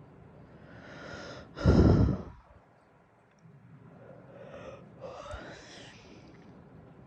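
A person breathing heavily: a drawn-in breath, then a loud, heavy sigh-like exhale about a second and a half in, and softer breaths a few seconds later.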